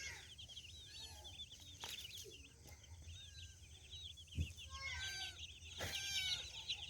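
A brood of baby chicks peeping continuously, many high, quick chirps overlapping, with a few lower clucks from a hen about five and six seconds in.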